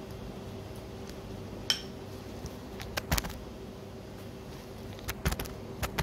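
A pastry brush clinking and tapping against a ceramic bowl while beaten egg is brushed onto bread rolls in a pan: a few scattered sharp clicks, one with a brief ring, and a quick run of taps near the end, over a faint steady hum.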